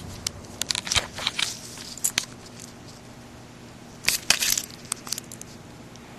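Handling noise from the recording phone: scattered clicks and rustling, with a dense cluster about four seconds in.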